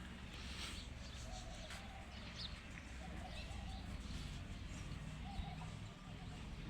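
Birds calling, with short repeated cooing notes and scattered high chirps, over a steady low rumble.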